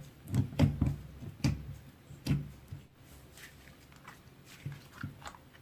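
Soft, irregular taps and clicks with dull low thuds, several a second at first and thinning out after about three seconds.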